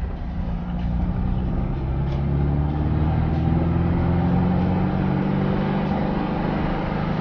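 Air-cooled flat-four engine of a restored 1960s Volkswagen Beetle running under way, heard from inside the cabin. Its pitch rises a little over the first few seconds, then holds steady.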